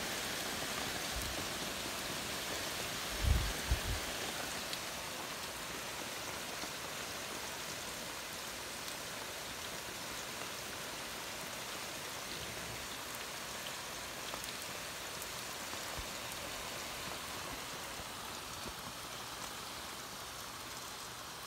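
Heavy rain pouring steadily, an even hiss that eases slightly toward the end, with two brief low thumps about three seconds in.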